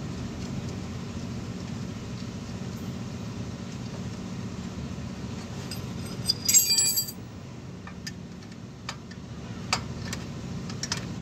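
Metal tools and fasteners clinking in a short jangling burst about six and a half seconds in, then a few single sharp metal clicks, as nuts and bolts on a truck's exhaust brake chamber are refitted. A steady low hum runs underneath.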